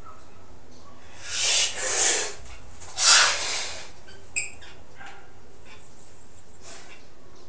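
Hard, noisy breaths of a man straining into weighted front lever pull-ups: three loud ones between about one and three and a half seconds in, then softer ones. A short metallic clink about four and a half seconds in.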